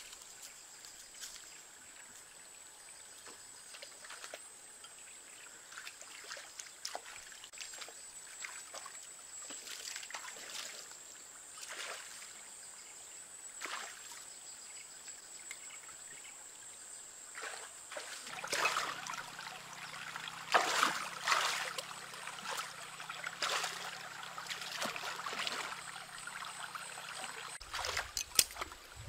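Shallow stream water trickling and splashing as hands work in it among rocks, with scattered small splashes and knocks that grow louder and busier about two-thirds of the way through. A thin steady high tone runs underneath until then.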